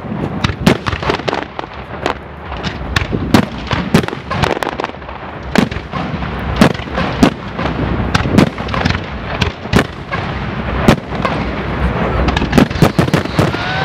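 Fireworks display: a rapid, continuous barrage of sharp bangs and crackles, several a second, over a low rumble.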